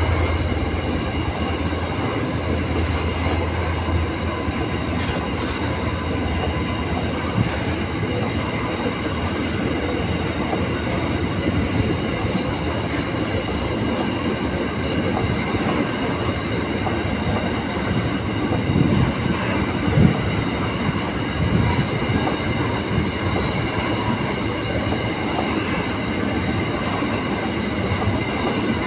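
Long freight train of hopper wagons rolling past, a steady rumble of steel wheels on rail with a few clanks over the rail joints and thin steady high tones above it.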